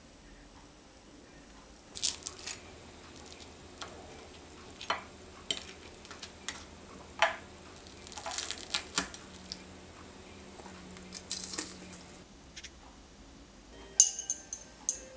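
A metal fork clinking and scraping on a ceramic plate in scattered short taps, starting about two seconds in. Near the end, a small glass bowl clinks against the plate with a brief ringing tone.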